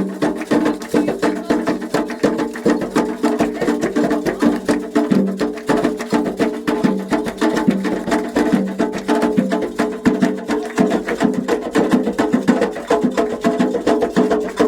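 Candomblé ketu percussion played live for Xangô: atabaque hand drums beating a fast, dense rhythm with sharp bell or wood-block strikes over it, loud and unbroken.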